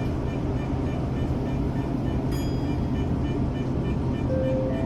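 Tokyo Metro 05 series commuter train heard from its cab: a steady low rumble and electrical hum. About four seconds in, a brief two-step tone rises in pitch.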